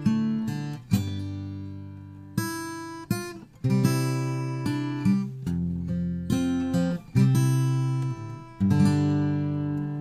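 Instrumental music: acoustic guitar chords strummed roughly once a second, each chord left to ring and fade before the next.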